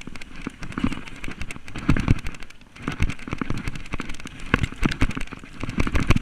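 Mountain bike descending a rough dirt trail at speed, the bike rattling and knocking sharply over roots and bumps, heard from a camera riding on the bike or rider.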